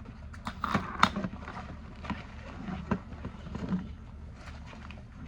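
Small hard objects being handled and set down: a scatter of clicks, knocks and light rattles, loudest about a second in, over a steady low hum.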